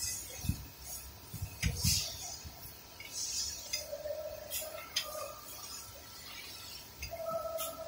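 Scattered metallic clinks and dull knocks of hand tools and metal parts against the Toyota Land Cruiser's front differential housing while it is being unbolted.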